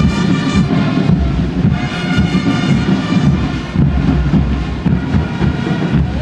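Marching-band music for a parade, held pitched notes over a heavy low rumble.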